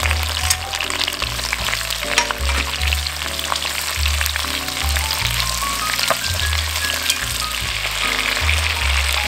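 Sliced onion, bell peppers and button mushrooms sizzling in hot olive oil as they are stir-fried, with a utensil clicking against the pan now and then. Background music with a bass line plays throughout.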